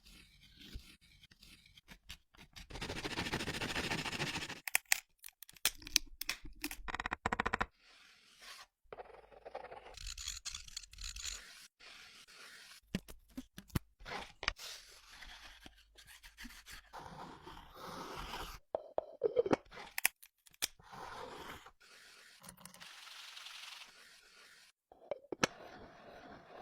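Hand work on wood: stretches of scraping and cutting noise broken by many sharp clicks and knocks, the longest scrape about two to four seconds in.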